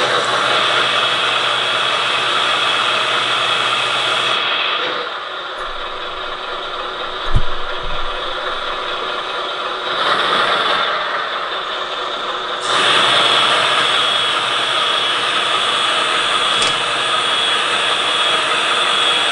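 Scale RC MAN 8x8 hook-lift truck working its hydraulic hook arm to pull a container onto its bed: the truck's electronic diesel engine sound and hydraulic pump run steadily, getting louder and quieter as the arm moves. A dull knock comes about seven seconds in.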